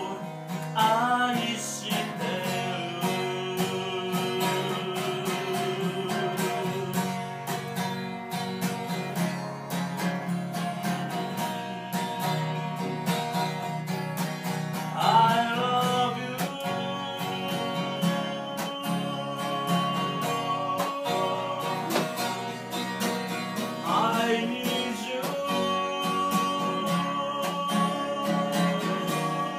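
Acoustic guitar strummed with a man singing a slow song in long held notes, in three phrases.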